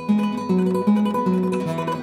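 Background music: a plucked guitar picking a light, repeating pattern of notes.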